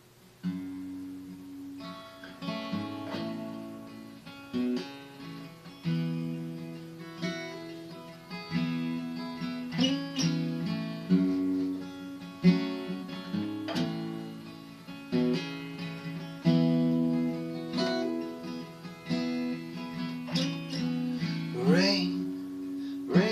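Solo acoustic guitar intro: chords struck roughly every second and a half and left to ring, with picked notes between. A voice starts to sing near the end.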